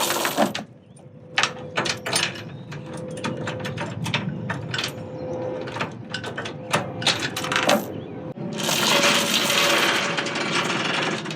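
Loose metal, likely tie-down chain, clinking and clanking in a string of sharp irregular knocks, then a denser stretch of rattling about eight to ten seconds in.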